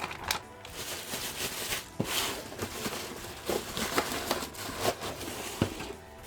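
Plastic packaging crinkling and rustling as it is handled and pulled off a graphics card, in irregular crackles with a few sharper clicks.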